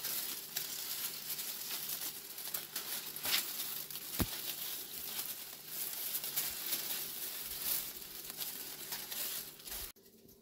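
Dry, dead peace lily leaves crackling and crumpling as they are pulled off the plant by hand: a continuous rustle of small crackles, with one sharp click about four seconds in. It stops suddenly near the end.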